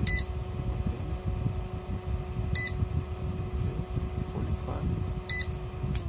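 Universal air-conditioner wired controller beeping three times, short high beeps a couple of seconds apart as its buttons are pressed, over a steady electrical hum.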